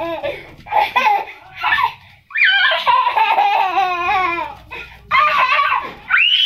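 A toddler laughing and shouting in several long, high-pitched bursts with short breaks between them.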